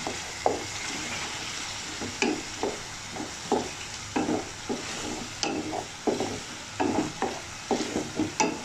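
A wooden spatula stirring and scraping thick chilli-garlic sauce around a metal pan, over a steady sizzle from the sauce frying on the flame. The scraping strokes come irregularly, about one or two a second.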